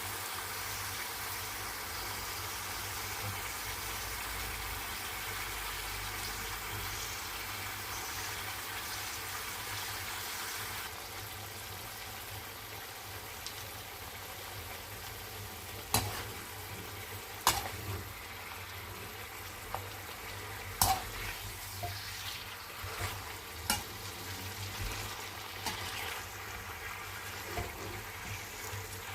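Chicken pieces sizzling steadily as they roast in hot oil in a pan. The sizzle eases a little partway through. In the second half a spoon knocks and clinks against the pan several times as the pieces are stirred.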